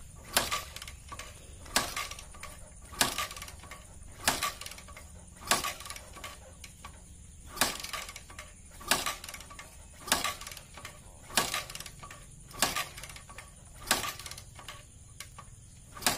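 Kick-starter of a Bajaj Discover 100 kicked over and over, about a dozen sharp clacks roughly a second and a quarter apart. The single-cylinder four-stroke engine turns over without catching, its carburettor just drained of water after years of standing.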